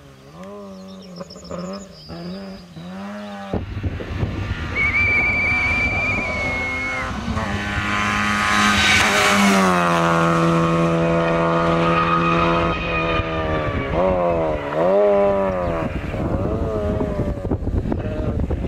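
Opel Astra GSi rally car driven hard, its engine revving up and dropping back through gear changes. It gets suddenly louder a few seconds in and is loudest as it passes close around the middle. About five seconds in there is a thin high squeal lasting about two seconds.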